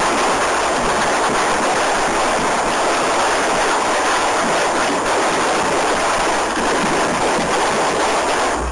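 Firework spraying a shower of sparks with a loud, steady hiss.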